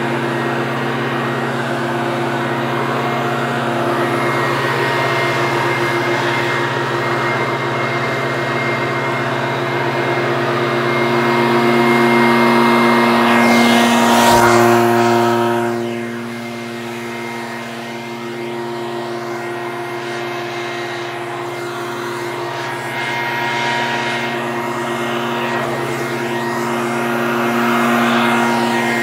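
Leaf blower running steadily with its motor at a constant pitch and a rush of air. It grows louder just before halfway, then drops back somewhat a couple of seconds later.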